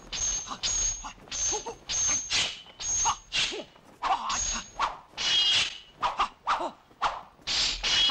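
Film sound effects of a sword-against-sabre fight: a rapid series of blade swishes and clashing steel clangs, about two a second, each clang ringing briefly, mixed with short yells from the fighters.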